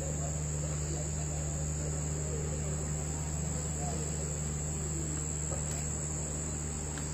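Night insect chorus, crickets, as one unbroken high-pitched trill, over a low steady hum, with faint voices in the background.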